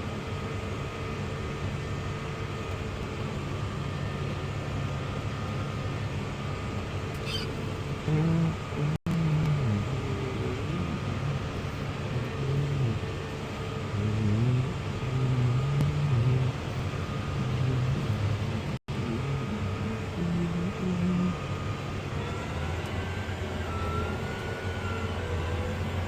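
Case IH tractor engine running steadily under load, heard from inside the cab, its low drone wavering in pitch and level in the middle stretch.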